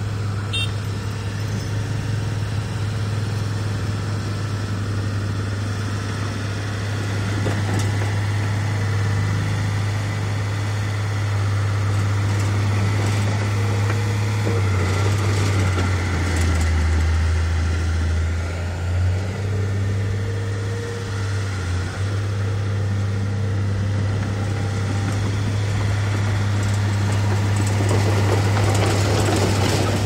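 Heavy diesel engine of earthmoving machinery running steadily, its pitch dropping for a few seconds about midway and then coming back up.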